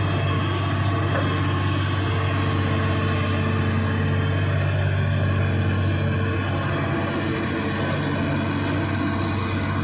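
Hitachi excavator's diesel engine running steadily with a deep, even hum.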